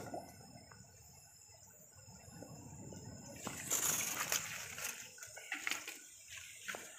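Someone wading through shallow muddy river water: soft sloshing and splashing that grows louder about halfway through, mixed with leaves rustling as they brush past. A steady high chirring of insects runs underneath.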